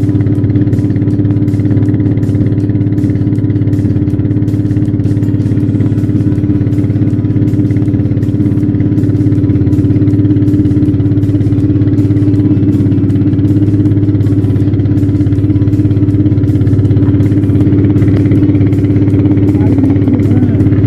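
Motorboat engine running steadily, a constant loud low drone with no change in speed.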